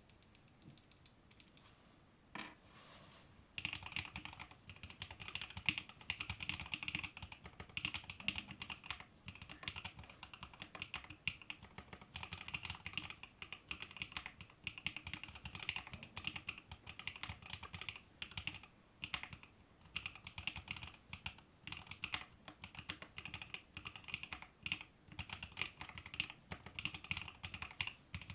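Fuji65 mechanical keyboard being typed on steadily and quickly: lubed Alpaca v2 linear switches clacking against a carbon fiber plate, with a few single keystrokes before fast continuous typing starts about three and a half seconds in.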